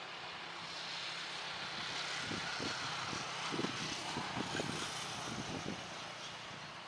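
Airliner engine noise swelling and fading as an aircraft passes, with a run of low thuds near the middle at its loudest.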